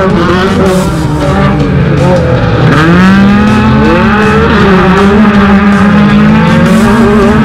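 Off-road race car engine running loud under hard driving, its revs rising and falling repeatedly, with a sharp rise about three seconds in.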